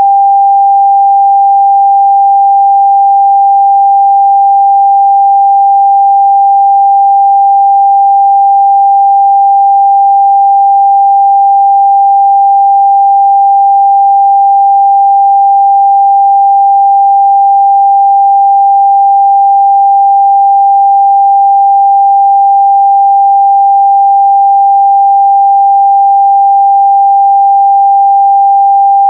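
Steady, loud 794 Hz pure sine test tone, held at one pitch and level without a break.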